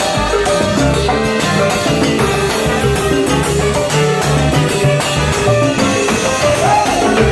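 Live salsa band playing: pitched instrumental lines over a repeating bass figure and busy percussion.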